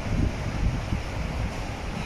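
Wind buffeting the microphone: a low, irregular rumble with gusts in the first second.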